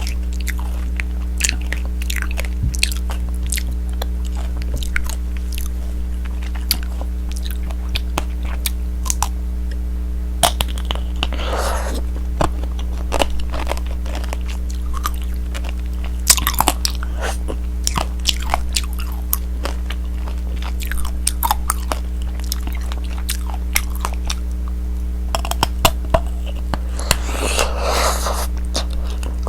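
Close-up crunching and chewing of tanghulu: the hard candied-sugar shell cracks in many sharp, crisp clicks as the fruit is bitten and chewed. A steady low hum runs underneath.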